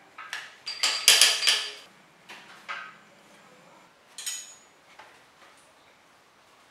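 Sharp metallic clicks and clinks of small bicycle parts being handled. A quick run of them comes in the first two seconds, loudest just after one second, then a few more, with another short group about four seconds in.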